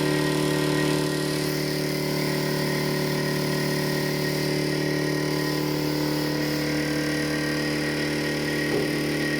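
A machine's motor running with a steady, even hum that does not change in pitch or level.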